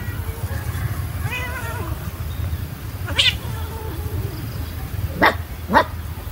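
Young tabby cat meowing and yowling while a dog plays roughly with it: one drawn-out meow about a second in, then three short sharp cries, the last two close together near the end. A low steady rumble runs underneath.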